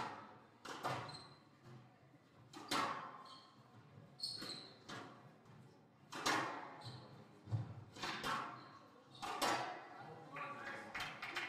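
Squash rally: the ball is struck by the rackets and hits the walls about every second or two, each hit echoing in the hall, with short squeaks of shoes on the wooden court floor in between.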